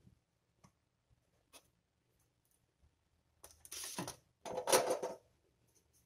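A few faint ticks, then, about three and a half seconds in, two short spells of rustling and clatter from fridge magnets being handled.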